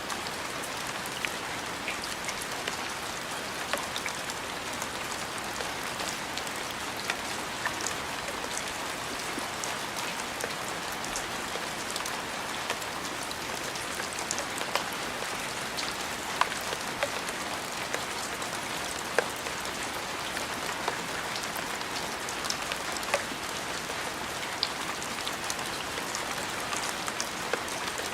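Steady rain falling on a surface, an even hiss with scattered sharp ticks of individual drops striking close by.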